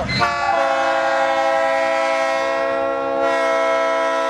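Train horn sounding one long continuous blast, a chord of several steady tones held without a break, swelling slightly about three seconds in.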